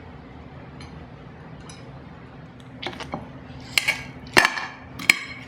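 Cutlery clinking against a plate: a handful of sharp, ringing clinks starting about halfway in, the loudest near the end.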